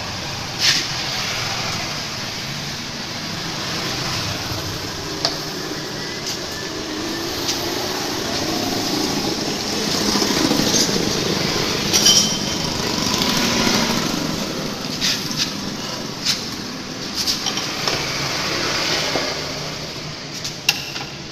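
Honda Vario 125 scooter engine running steadily, with sharp clicks at irregular intervals over it.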